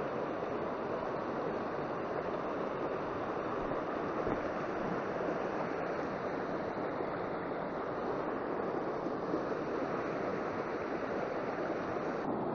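Shallow river water running over stones: a steady rushing.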